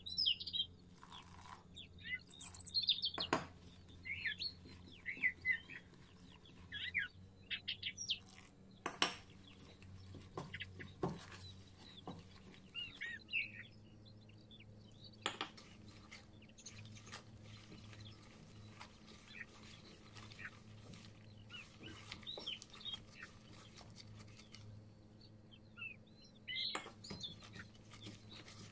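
Birds chirping on and off in the background, busiest in the first few seconds and again near the end. A few sharp taps and knocks come from a measuring cup and gloved hands against a stainless steel mixing bowl as water is added and dough is kneaded.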